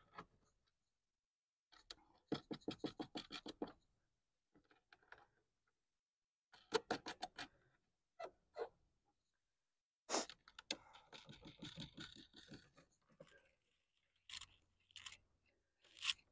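Faint hand-tool work under the hood: a ratchet wrench clicking in short quick runs, with scraping and rustling as parts are handled and fitted back on the engine.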